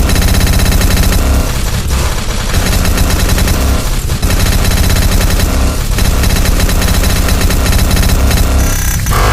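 Loud, rapid machine-gun-like rattle from an electronic robotic sound effect, with steady tones behind it.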